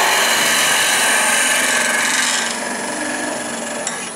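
Spindle gouge cutting wood turning on a lathe, a steady cutting noise that eases off about halfway through.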